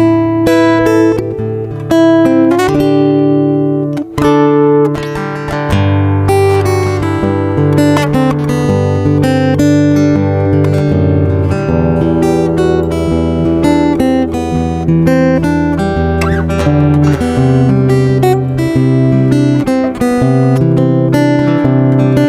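Background music led by acoustic guitar, plucked and strummed over a bass line.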